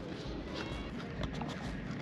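Footsteps of a person walking, faint irregular steps over a steady background hiss.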